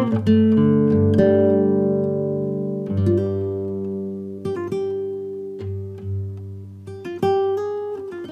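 Background music: acoustic guitar plucking notes and chords that ring on, with a new chord every second or two.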